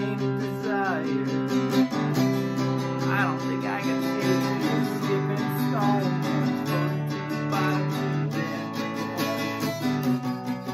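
Acoustic guitar playing an instrumental passage: chords strummed and left ringing, with a few short sliding notes.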